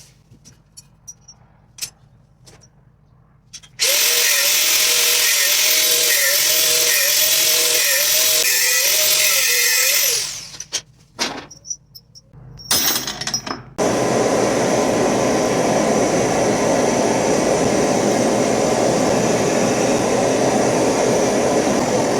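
Scattered light clicks, then a power tool's motor runs loud for about six seconds with a whine that wavers up and down about twice a second. It stops, a few knocks follow, and about fourteen seconds in a loud, even rushing noise starts and keeps going.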